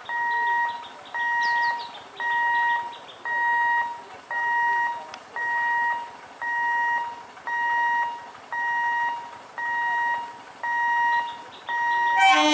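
Level crossing warning alarm beeping: one steady high tone, about half a second on and half off, repeating about once a second, warning of an approaching train. Right at the end an EMU local train's horn starts to sound.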